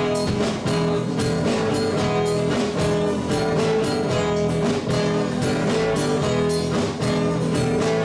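Acoustic guitar strummed in a steady rhythm, with a harmonica playing long held notes over it in an instrumental break between sung verses.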